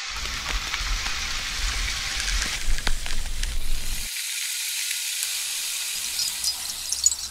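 A steady crackling hiss, with a low rumble beneath it that stops about four seconds in and a few sharp clicks near the middle.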